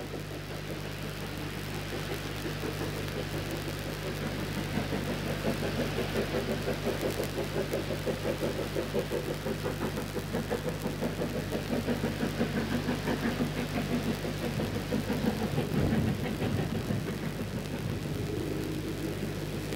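Steam locomotive working hard, its exhaust beating in a steady rhythm of about three chuffs a second and growing louder as it approaches. A steady low hum runs underneath.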